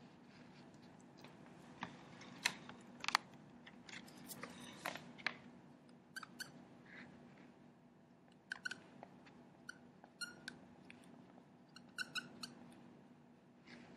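A few sharp clicks and knocks with light rustling as a small whiteboard is handled, then a dry-erase marker squeaking on the whiteboard in a run of short strokes as words are written.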